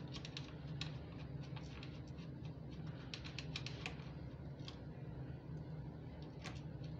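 Small screwdriver tightening a screw on an infusion pump's circuit board and metal frame: scattered light clicks and scrapes in irregular clusters, over a steady low hum.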